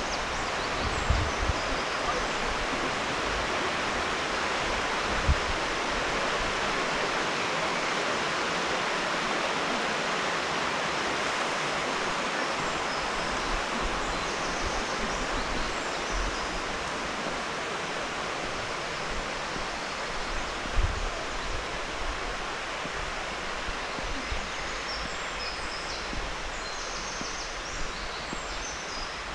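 Steady noise of river water flowing, the Alzette heard from a bridge, with a few low thumps along the way.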